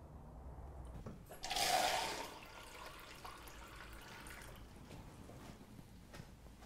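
Kitchen tap running into a cup: a loud rush of water for under a second, about one and a half seconds in, then a fainter flow that tapers off.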